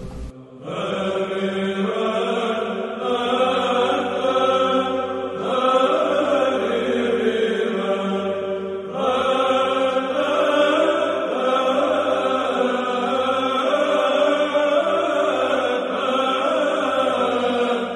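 Slow liturgical chanting, in the manner of Byzantine Orthodox chant: a melodic line sung over a steady held drone note, in phrases with short breaks between them.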